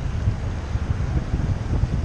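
Wind buffeting the microphone of a bicycle-mounted camera as the bike rides along a road: a steady, low rumble.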